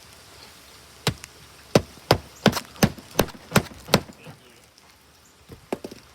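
A run of about eight sharp knocks, roughly three a second, starting about a second in, then two lighter knocks near the end.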